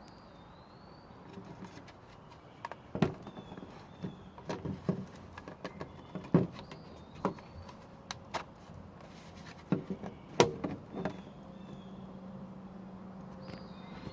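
Irregular knocks and clicks of an electric mosquito trap being handled, with faint bird chirps. A low steady hum comes in about eleven seconds in.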